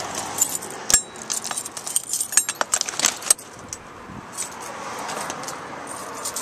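A bunch of keys on a ring jangling and clinking as a key is worked in the motorhome's door lock, with a sharp click about a second in and a quick run of clicks around three seconds in.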